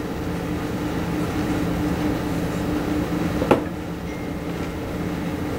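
A steady, low mechanical hum made of several level tones, like a ventilation or fan unit running, with a single sharp click about three and a half seconds in.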